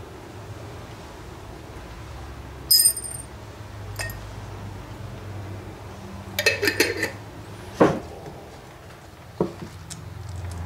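Small metal carburetor parts clinking against a glass jar: one ringing clink about three seconds in, a brief rattle of clinks past the middle, then a couple of dull knocks.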